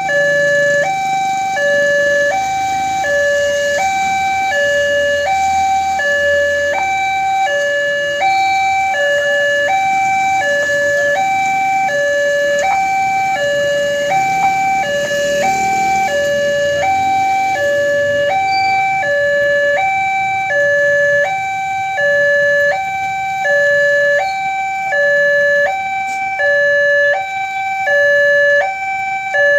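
Railway level-crossing warning alarm: an electronic two-tone signal switching back and forth between a lower and a higher pitch, each held for about two-thirds of a second. It is the signal that a train is approaching.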